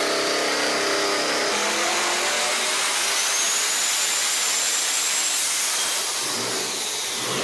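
Devel Sixteen quad-turbo V16 engine running hard on a dyno: a loud, steady rushing roar. A high whistle rises about three seconds in and falls away near the end.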